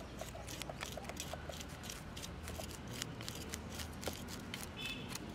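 A kitchen knife scraping the scales off a barracuda (ooli meen) on a wooden chopping block: quick, rapid scratchy strokes with small clicks as the scales come away.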